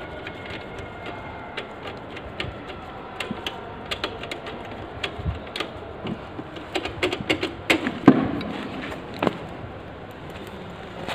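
Irregular sharp clicks and taps of metal parts and tools being handled at a motorcycle's rear axle and chain adjuster, coming thicker in the second half.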